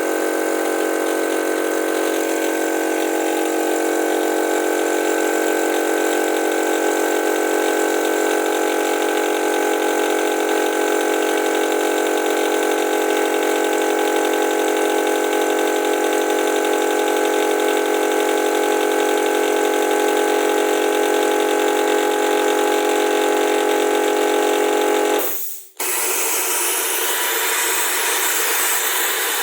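Air compressor running steadily with a many-toned hum, together with the hiss of compressed air driving a venturi vacuum gun that is sucking up wet sand. About 25 seconds in the sound breaks off for a moment and comes back as a hissier rush without the hum.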